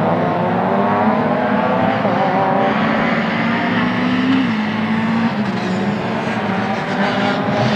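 Race-prepared Renault Clio's engine revving hard through gear changes and lifts, its pitch climbing and then dropping back several times.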